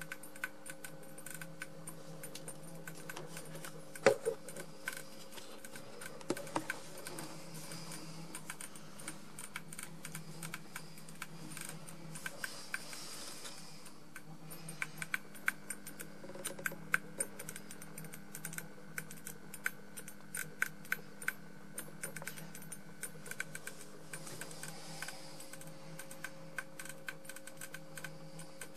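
A 20 W fluorescent tube and its electronic ballasts giving a steady low electrical hum with irregular dry crackling clicks scattered throughout, one louder crack about four seconds in. The tube is being overdriven to burn out, its electrode end glowing orange.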